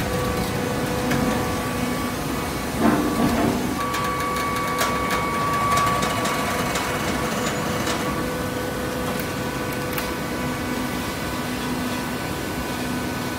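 Horizontal hydraulic baler's electric motor and hydraulic pump running with a steady hum, with a brief clatter about three seconds in and a higher whine that comes in about four seconds in and fades about two seconds later.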